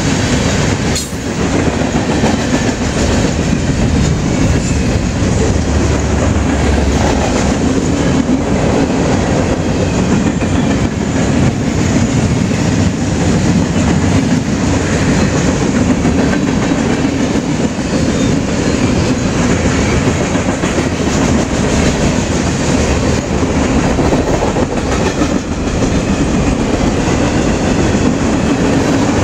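Freight train cars rolling past, a steady loud rumble of steel wheels on the rails.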